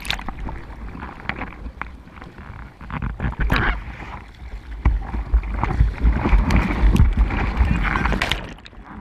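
Seawater sloshing and splashing right against a board-level action camera in the surf, with rumbling buffeting. It grows louder about five seconds in as breaking whitewater washes over, then cuts off abruptly near the end as the water closes over the camera.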